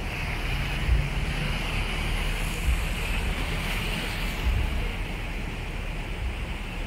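Small sea waves washing and splashing over shoreline rocks, with wind buffeting the microphone and a couple of low thumps.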